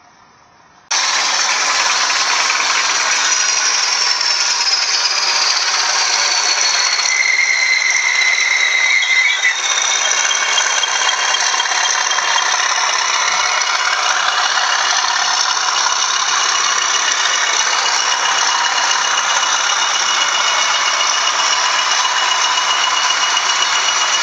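Engine-like rattling from a model Class 20 diesel locomotive, starting abruptly about a second in and then running steadily. High whistling tones slide down in pitch over the first several seconds, then settle into one steady high whistle.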